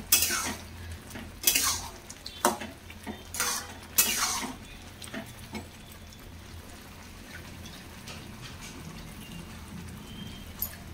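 Steel ladle scraping and knocking against a metal kadai while stirring a thick pea-and-potato curry, several strokes in the first four seconds, then quieter.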